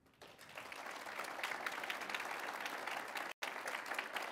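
Audience applauding, swelling over the first second and then holding steady, with a split-second dropout in the audio about three and a half seconds in.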